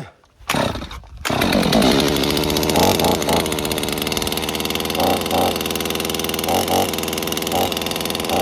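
Holzforma G255 45.4 cc two-stroke chainsaw running at high revs, coming in about a second in and holding steady, with short recurring changes in tone.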